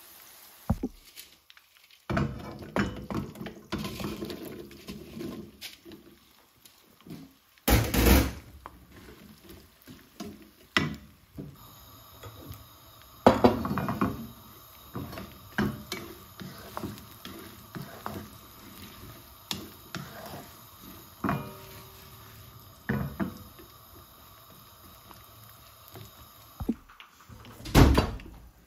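Okra pieces frying in hot oil in a non-stick pan, a sizzling hiss, with the wooden spatula and utensils knocking and scraping against the pan, several clatters loud and sudden.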